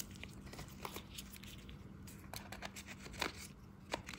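Faint handling noise from a small pocketknife being turned in the hands: scattered light clicks and rustling, with a few sharper clicks in the last second or so.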